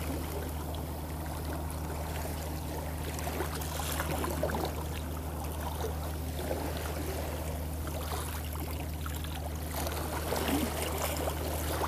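Boat engine running with a steady low drone, with water splashing and trickling against the hull over it.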